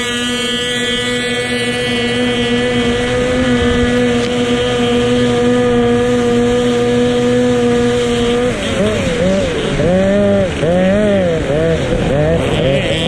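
Racing motorboat engine running at a steady, high pitch. About eight and a half seconds in, the steady note gives way to a pitch that swoops up and down in quick repeated arches.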